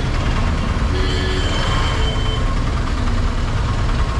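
Heavy, slow-moving road traffic: many vehicle engines running together in a dense, steady low rumble.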